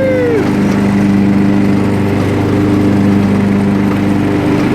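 Riding lawn mower engine running steadily with an even hum.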